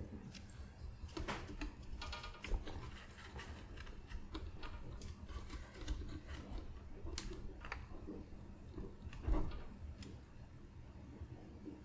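Light clicks and taps of small hand tools on a watch movement at a watchmaker's bench, with a brief rapid rattle about two seconds in and a louder knock about nine seconds in. A faint steady high-pitched whine runs underneath.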